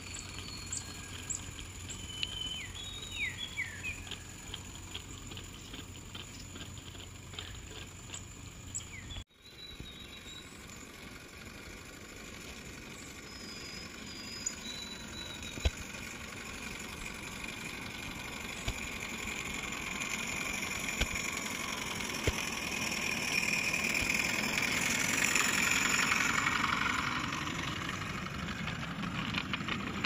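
Live-steam Regner Heisler garden-railway locomotive running, its steam hiss and exhaust growing louder over the second half as it draws close. Birds chirp in the first part.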